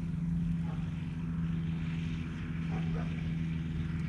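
Light aircraft engine and propeller running with a steady drone as the microlight rolls on the grass after landing, with wind rumbling on the microphone.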